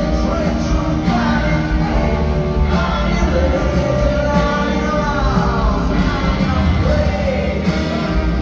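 Live rock band playing in an arena: electric guitar and a singer's voice over the full band, heard from among the audience.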